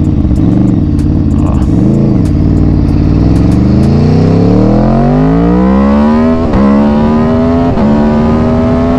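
Aprilia Tuono V4 motorcycle's V4 engine accelerating hard. The revs waver at first as the throttle is eased on and off, then the pitch rises steadily for about four seconds. Two upshifts follow near the end, each dropping the pitch before it climbs again.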